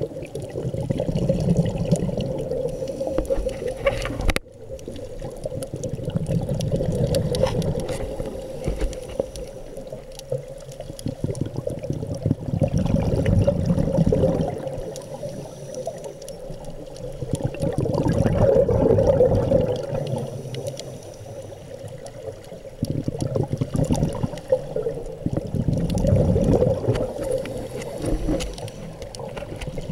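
Scuba diver breathing through a Scubapro regulator underwater: exhaled air bubbles in swells about every six seconds, with quieter gaps between breaths. A steady low hum runs underneath, and the sound drops out suddenly for a moment about four seconds in.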